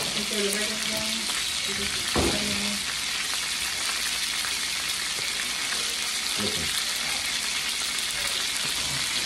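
Cheese-stuffed hamburger patties sizzling steadily as they fry in grease in a nonstick skillet. A dull knock sounds about two seconds in, and a fainter one comes later.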